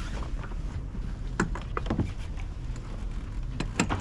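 Steady low rush of wind and water around a small sailing yacht under way, with a handful of sharp slaps: waves slapping the hull, twice around the middle and twice near the end.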